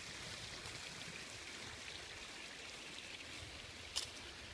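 Faint steady outdoor background hiss, with one sharp click about four seconds in.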